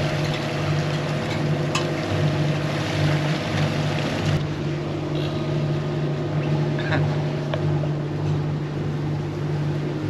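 A Lagoon 440 sailing catamaran's twin inboard diesel engines running steadily under way: an even low hum under wind and water wash, with a couple of light clicks.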